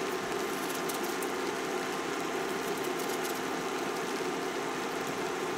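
Steady electrical hum with an even hiss, from a portable countertop burner running under a frying pan of apples.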